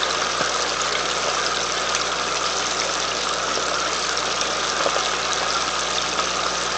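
Turkey wings frying in a deep fryer's hot oil: a steady sizzling hiss, dense with small crackles.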